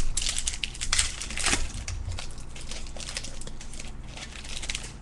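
Baseball card pack wrapper crinkling as it is torn open and handled. The crackle is densest in the first couple of seconds, then lighter and more scattered.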